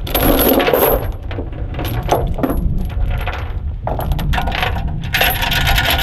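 Steel tie-down chain clinking and rattling as it is pulled through and around a bulldozer's track frame, with bright metallic rings. The loudest clinking comes in the first second and again near the end, over a steady low wind rumble on the microphone.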